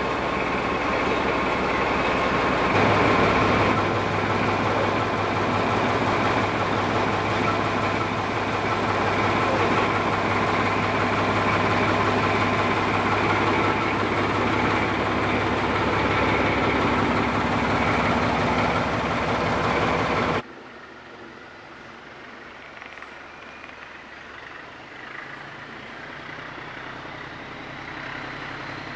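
British Railways Class 14 diesel-hydraulic locomotive's Paxman Ventura diesel engine running steadily while the locomotive stands still, with a deeper hum joining a few seconds in. About two-thirds of the way through it cuts to a much fainter engine sound as the locomotive approaches from a distance.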